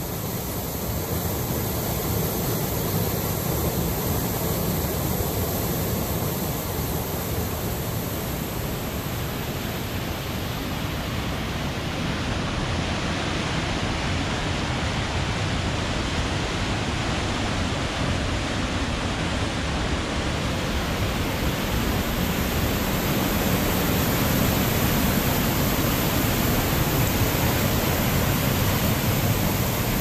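Mountain creek whitewater cascading through a narrow rock gorge: a steady rush of water that grows a little louder in the last few seconds.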